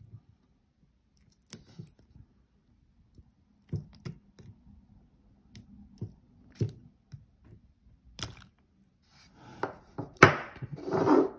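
Needle-nose pliers clicking and tapping against a small pack of cylindrical battery cells as a part is worked loose: scattered sharp clicks, then a louder stretch of clatter and scraping near the end as a cell comes free.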